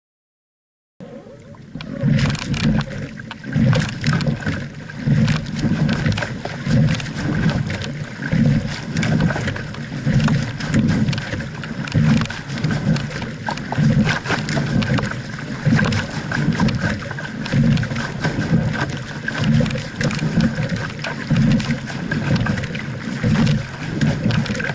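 A racing double scull under full rowing effort: water rushing and splashing along the hull, with a low surge about once a second in time with the strokes and short knocks and clicks from the oars and rigging. It begins about a second in.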